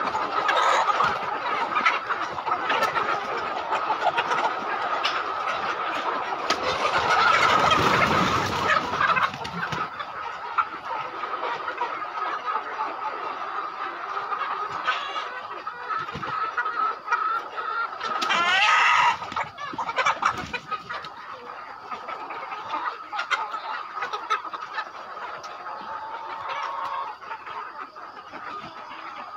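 A large flock of gà hồ chickens, a Đông Tảo and local-breed cross, clucking and calling over one another without pause. The calling swells for a few seconds about seven seconds in, and a single loud call stands out a little past the middle.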